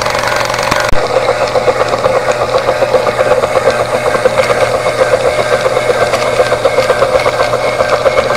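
Small model steam engines running on live steam: first the little feed-pump engine, then, after an abrupt change about a second in, the larger model marine engine running with a fast, even clattering beat.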